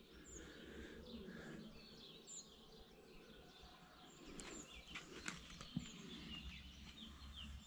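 Near silence: faint outdoor ambience with a few short bird chirps now and then.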